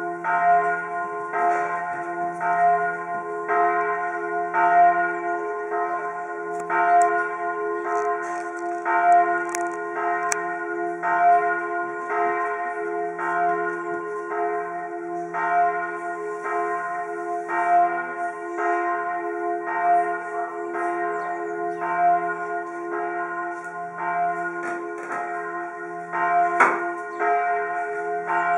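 Church bells of the French Church in Bern ringing a full peal: several bells striking over one another about every half to three-quarters of a second, their tones ringing on between strikes.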